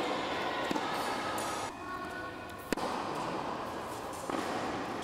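A tennis ball struck once by a racket, a single sharp crack about two and a half seconds in, over the steady noise of an indoor tennis hall.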